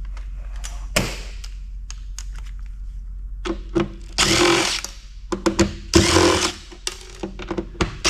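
Power drill-driver running in short bursts to back out the screws holding metal brackets, two longer runs about four and six seconds in, with small clicks and knocks between.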